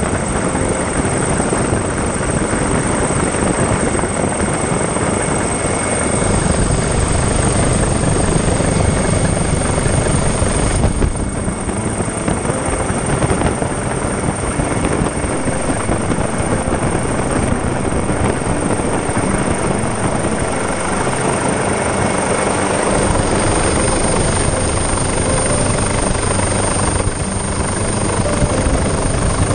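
Helicopter engine and rotor noise heard from inside the cabin: a steady, loud rushing noise with a thin high whine over it.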